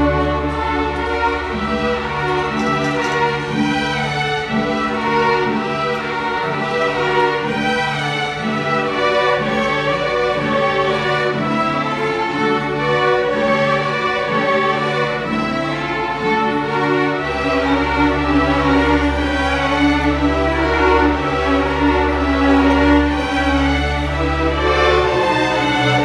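A string orchestra of violins, cellos and double basses playing a passage of long, held notes, with the basses sustaining a low note beneath through much of the second half.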